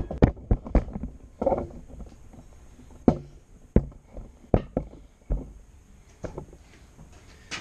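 Blacksmith's hammer knocking the freshly bent J hook on the anvil: a quick run of blows in the first second, then scattered single knocks and taps, straightening the hook.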